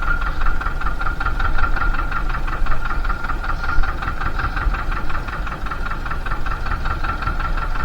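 Fishing boat's engine running steadily at idle, a fast even chugging with a low rumble underneath.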